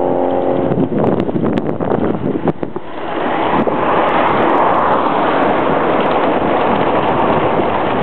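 Wind buffeting the microphone of a camera held by a cyclist riding along the road, with a few knocks and rattles in the first three seconds. The wind rush swells about three seconds in and then stays steady and loud.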